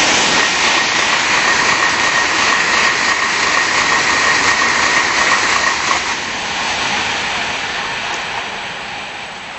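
Tokaido Shinkansen high-speed train passing close at speed: a loud rush of wheel and wind noise with a steady high whine. The sound fades gradually from about six seconds in as the train moves away.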